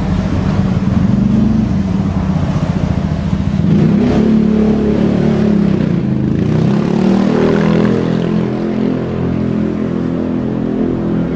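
A motor vehicle's engine running close by as a steady low hum, its tones shifting up and wavering in pitch about four seconds in, as when the vehicle accelerates.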